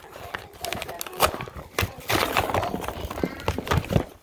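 Toy packaging and figures being handled during unboxing: scattered sharp clicks and knocks with rustling, and a brief voice near the middle.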